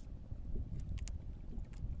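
Wind rumbling on the microphone and water sloshing against a small fishing boat's hull, with a few short ticks or splashes about a second in.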